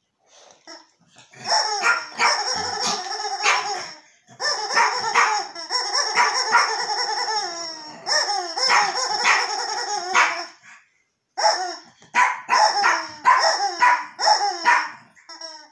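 Rubber chicken squeeze toy squeezed by hand, giving long drawn-out squawks with a wavering pitch: three of two to four seconds each, then a quick run of shorter squawks in the last few seconds.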